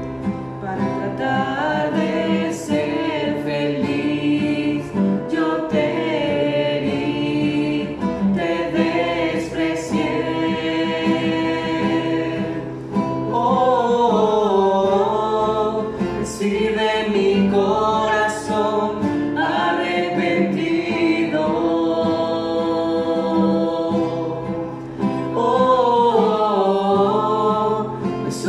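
A man and a woman singing a Spanish-language worship song together, accompanied by a strummed nylon-string classical guitar.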